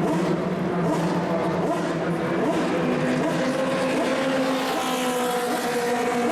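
Engines of several 1960s cigar-shaped Formula 2 and Formula 3 racing cars running together, their notes at different pitches overlapping and a higher engine note coming in about halfway through.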